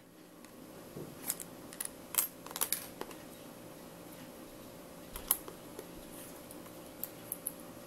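Scattered small clicks and taps from handling an iPhone and its SIM card and SIM tray: a cluster of them in the first few seconds, then a few single clicks near the end.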